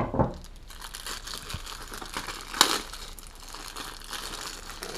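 Packaging of hydrogel gel packs being torn and pulled open by hand, crinkling and rustling throughout, with one sharp loud crackle about halfway through.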